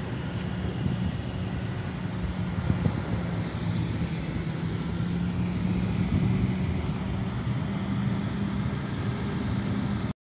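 Semi truck's diesel engine running steadily as the rig backs up, a constant low hum with broad road noise over it, cutting off abruptly at the very end.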